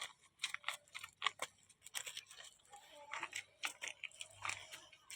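Sunflower seeds being scattered by hand: a faint, irregular run of light clicks and ticks as they fall and are handled.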